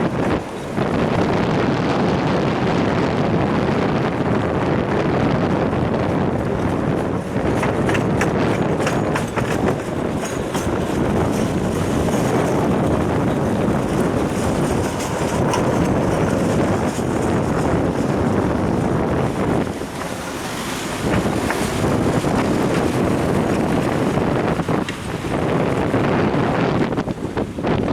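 Wind buffeting the microphone of a head-mounted action camera during a bicycle ride: a steady rushing noise that dips briefly a few times.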